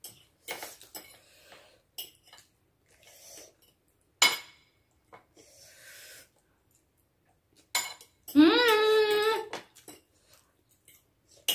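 Forks clinking and scraping against plates as noodles are eaten, with scattered sharp clinks. About eight seconds in, a person lets out one drawn-out vocal sound, the loudest thing here.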